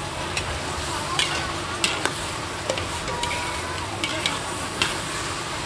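Two long metal spatulas scraping and clanking against a large steel wok during a stir-fry, over a steady sizzle of the frying food. The sharp clanks come irregularly, about one to two a second.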